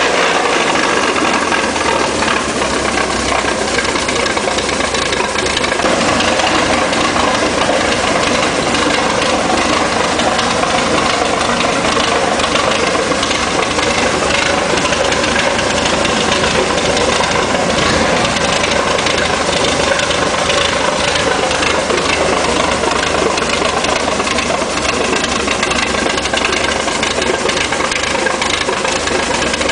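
Hino K13C six-cylinder turbo engine, converted from diesel to run on CNG, running steadily at idle.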